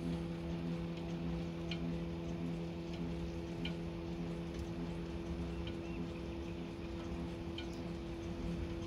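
Nema 23 stepper motors on a homemade CNC gantry humming steadily as they drive a pen slowly across the table during a test run at constant feed. A few faint high ticks are scattered through it.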